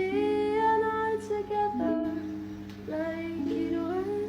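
Background music: a slow, soft melody of long held notes over a steady low hum.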